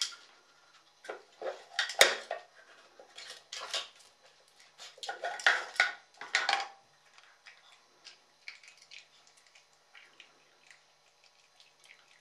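Wooden lids and drawers of a dog puzzle board knocking and clattering as a small dog noses and paws them open: a sharp knock about two seconds in, a run of clatters from about five to seven seconds, then lighter scattered clicks.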